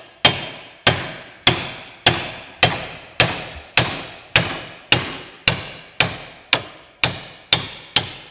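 Hammer blows on a steel bushing driver, about fifteen evenly spaced strikes at roughly two a second, each with a short metallic ring, driving the worn kingpin bushings out of a 1932 Ford BB truck's steering spindle.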